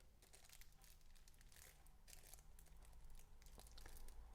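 Near silence with faint crinkling and small clicks of a thin disposable plastic sleeve on a dental curing light being handled.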